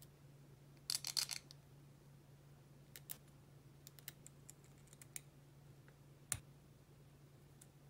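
Small metal parts clicking in the fingers as a small bearing and washer are slid onto a screw: a quick run of clicks about a second in, a few light ticks after, and one sharper click near the end.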